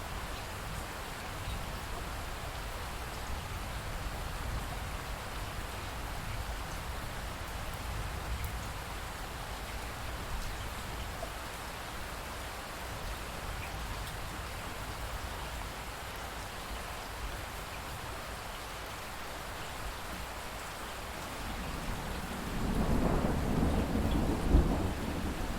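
Steady rain falling, with a low rumble of thunder throughout; a louder roll of thunder builds about 22 seconds in and runs to the end.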